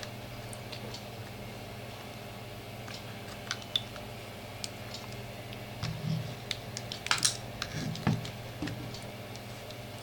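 Scattered small clicks and scrapes of a thin metal tool prying at the seam of a plastic laptop battery case, with a louder cluster of clicks about seven seconds in. A steady low hum runs underneath.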